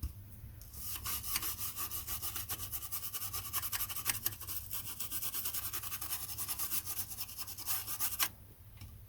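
Toothbrush scrubbing quickly back and forth over the pins of a ZX Spectrum's edge-connector extension port, a rapid scratchy rubbing. It starts about a second in and stops abruptly near the end.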